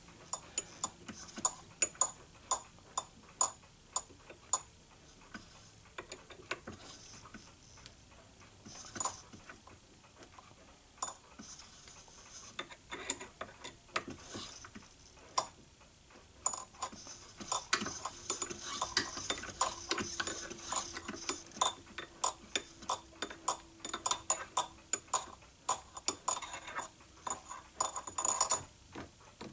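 Light metallic clicks and ticks, irregular and growing busier in the second half, as a threading die is backed off a freshly cut quarter-inch thread in mild steel by turning the micro lathe's chuck by hand.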